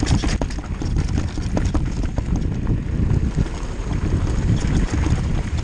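Mountain bike descending loose rocky singletrack: tyres crunching over stones and gravel, the bike rattling with frequent sharp knocks, under a steady rumble of wind on the microphone.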